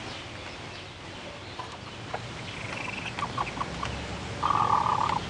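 Chickens clucking, with a short high call about halfway through and a louder call lasting most of a second near the end.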